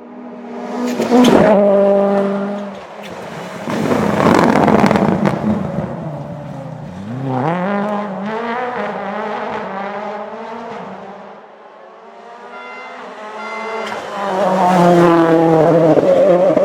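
Rally cars at full throttle going by on the stage, in several loud passes. About seven seconds in, one engine revs up hard as the car accelerates away.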